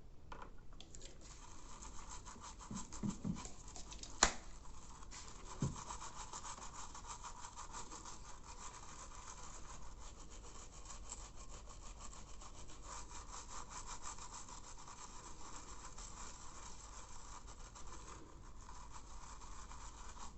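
Rapid back-and-forth scrubbing of freshly soldered joints on a circuit board with alcohol, cleaning off flux residue, with a sharp tap about four seconds in.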